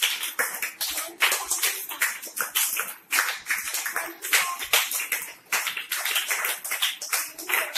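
A group of schoolchildren clapping, quick and uneven: applause for classmates receiving small prizes for full marks.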